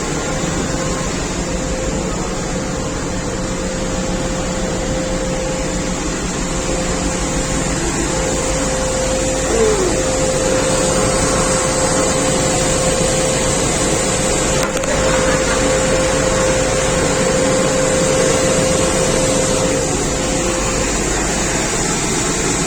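Strong wind blowing steadily, with a constant mechanical hum underneath and one brief knock about two-thirds of the way in.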